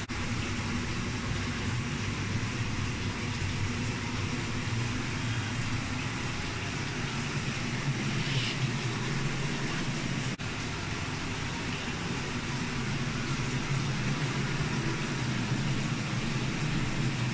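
Kitchen range hood exhaust fan running steadily: a low hum under a broad whoosh.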